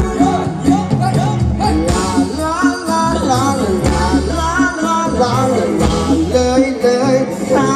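A live band playing a Thai ramwong dance song, with a singer's voice over the instruments and bass.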